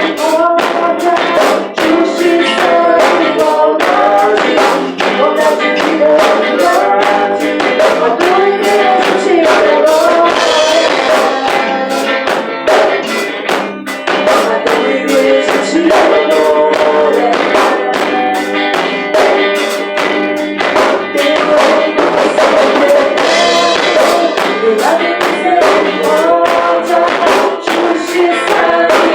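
Worship band playing: singing over guitar, with a steady beat of percussion.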